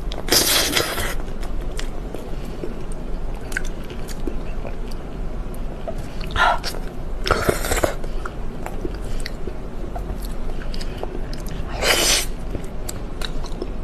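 Close-miked eating: biting and chewing with small wet mouth clicks, and a few short, louder noisy bursts.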